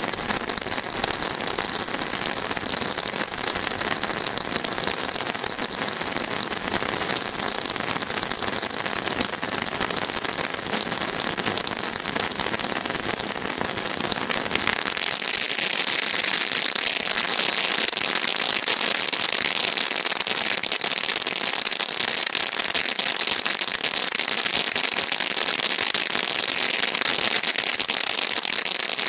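Brothers Pyrotechnics 'Goddess of Companionship' display fountain firework burning: a steady spraying hiss thick with fine crackles. About halfway through the low rumble falls away and the hiss turns higher and a little louder.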